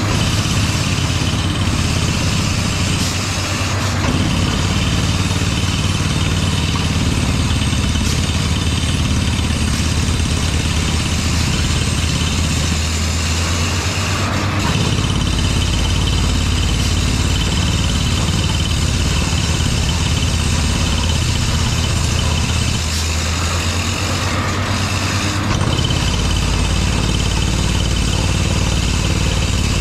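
Truck-mounted borewell drilling rig's engine running steadily with a low hum, its low-end tone shifting about halfway through and again near the end.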